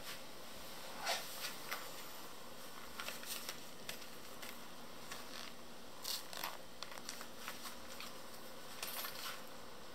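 Cloth rustling and small scattered clicks as a wallet is drawn from a trouser pocket and opened by hand, the loudest click about a second in.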